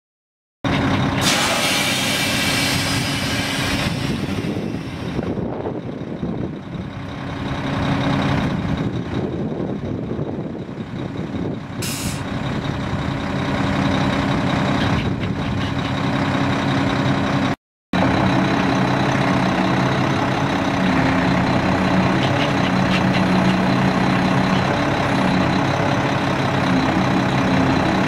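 Mack E7 12-litre inline-six diesel engine of a 2001 Mack RB688S truck running steadily at idle, with a burst of compressed-air hiss about a second in and another brief hiss near the middle.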